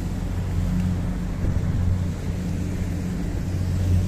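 Rigid inflatable boat's engine running steadily with an even low hum, over a hiss of wind and water.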